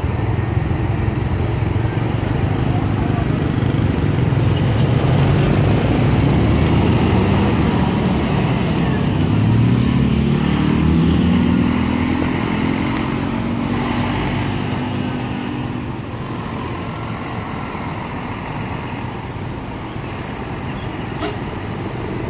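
Heavy truck's diesel engine passing close by while pulling a long trailer, its pitch climbing about nine seconds in as it speeds up, then easing off and fading, over steady road and tyre noise.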